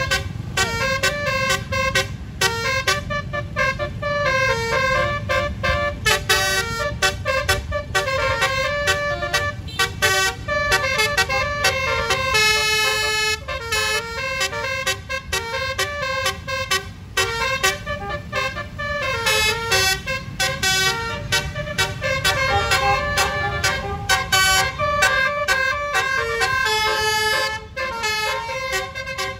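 Bus's Basuri telolet musical horn playing a fast melody in quick stepping notes, over the low running of the bus engine.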